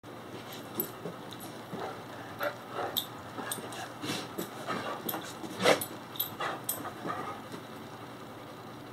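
English Mastiff turning circles on carpet: a scatter of short clicks and knocks from its movement, the loudest about halfway through, dying away for the last second or so.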